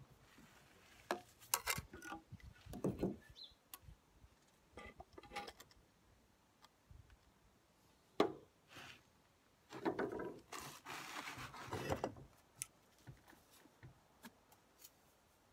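Scattered knocks, clicks and scrapes as a spirit level is set against freshly laid bricks and the bricks are handled. There is a sharp knock about eight seconds in and a longer scraping stretch from about ten to twelve seconds in.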